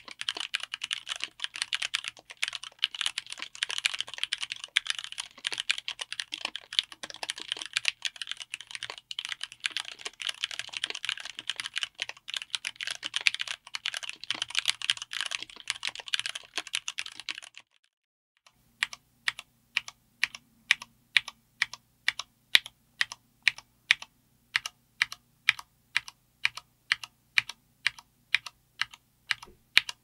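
Typing on a 60% mechanical keyboard with Cherry MX Black Clear-Top linear switches, GMK ABS double-shot Cherry-profile keycaps, an FR4 plate and an aluminium case: a dense, fast run of key clacks. After a short pause a little past halfway, single keys are struck one at a time at an even pace of about two or three strokes a second, over a faint hum.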